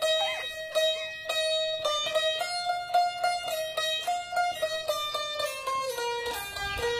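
Background music: a plucked string instrument playing a stepping melody, with about two notes a second.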